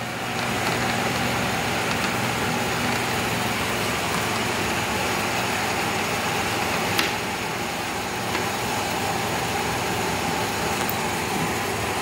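Steady mechanical hum with an even airy rush, and one sharp click about seven seconds in.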